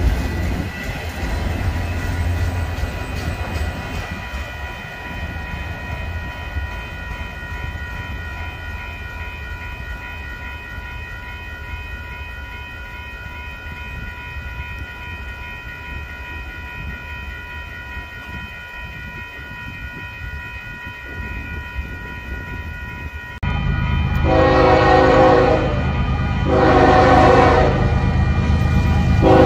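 A Union Pacific freight locomotive approaching a grade crossing and sounding its multi-chime air horn: two long blasts, with a third starting near the end, over a heavy engine and rail rumble. Before that comes the fading rumble of a passing freight train, with a steady ringing tone from the active crossing signal.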